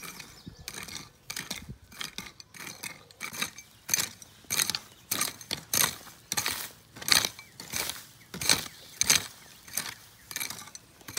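Long-handled garden tool chopping through weeds and soil by hand: a run of short swishing strikes, about two a second, hitting harder from about four seconds in.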